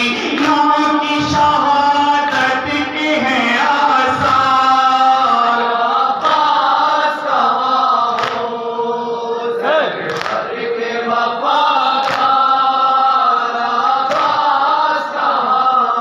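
Men chanting a noha, a mourning lament, in unison over a microphone. Regular chest-beating slaps of matam mark the beat.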